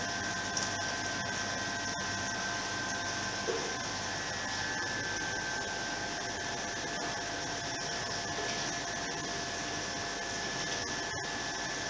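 Aquarium filtration equipment running: a steady hiss with a constant hum.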